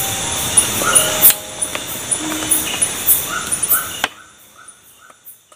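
Night-time forest ambience: insects calling in regular rapid high-pitched pulses, with short animal calls lower down, over a steady hiss. It all cuts off abruptly about four seconds in, leaving only faint traces.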